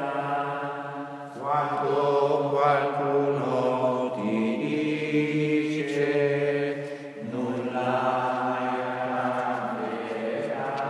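Slow sung liturgical chant by a low male voice in long held notes, moving step by step to a new pitch every second or two, with short breaks for breath between phrases.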